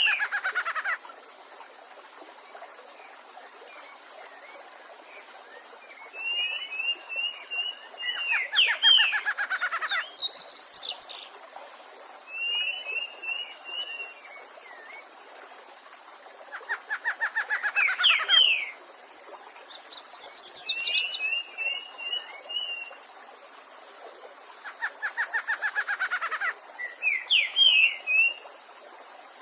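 Songbirds singing in repeating phrases about every eight or nine seconds: a fast run of notes sliding downward, a short twittering trill, and a few high thin notes. A steady hiss of running water lies underneath.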